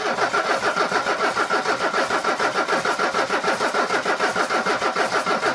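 Mercedes W116 300SD's five-cylinder OM617 turbodiesel cranked over on the starter for a compression test: an even chug of about eight compression strokes a second over a steady starter whine. The cylinders come in at about 330 to 345 psi, below the 380 to 400 expected of a well-maintained engine.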